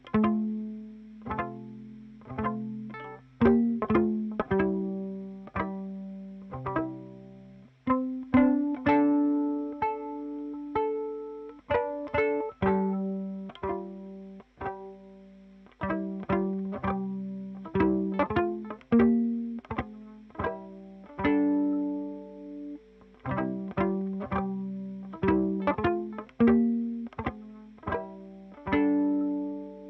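Music: a slow line of plucked string notes, mostly one at a time, each struck sharply and then ringing and fading, in a low-to-middle register.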